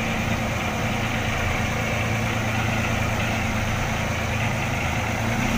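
Outrigger fishing boat's engine running steadily at low trolling speed, with a steady rush of water and wind over it.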